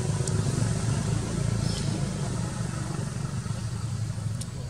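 Steady low drone of an engine running, with a few faint sharp ticks over it.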